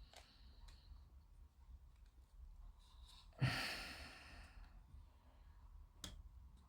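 A person lets out one heavy sigh about three and a half seconds in, straining while fitting plastic model kit parts together. Faint clicks come near the start and about six seconds in.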